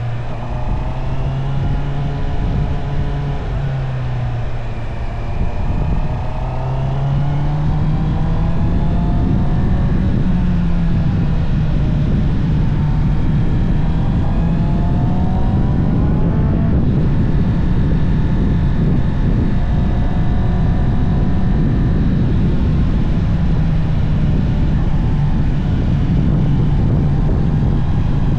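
Honda CB650R inline-four engine under way through its stock exhaust, its pitch dipping and then climbing in the first several seconds before holding fairly steady at cruise. Heavy wind noise on the microphone runs throughout and gets louder about seven seconds in as speed builds.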